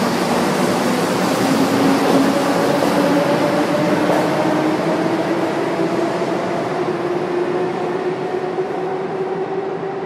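Electric train pulling out of the station: its traction motors whine in two tones that rise slowly and steadily in pitch as it gathers speed, over a heavy wheel-and-rail noise that eases off a little near the end.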